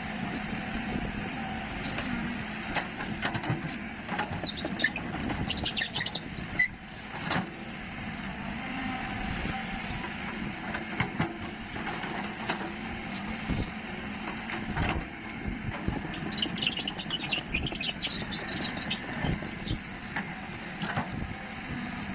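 Heavy earthmoving machinery at work: an engine running steadily under scattered knocks and clanks, with two spells of high-pitched squeaking, one about four seconds in and one past the middle.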